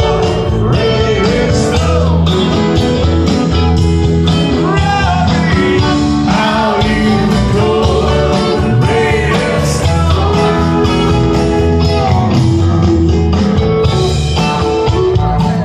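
A live rock band playing through a large PA, heard from the crowd at an outdoor concert: electric guitar and bass with singing, loud and steady.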